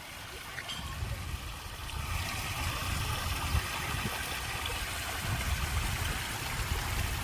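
Gusty wind rumbling on the microphone over the steady splashing of a pond's water feature; the splashing grows louder about two seconds in.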